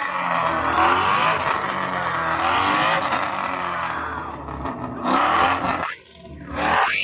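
A car engine revving hard under load with a loud hissing rush of noise, which drops away sharply about six seconds in.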